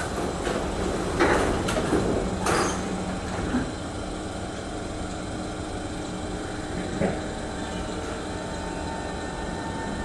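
MRT train's sliding passenger doors and the platform screen doors shutting, with a few sharp knocks in the first three seconds and a single click about seven seconds in, over the stopped train's steady hum.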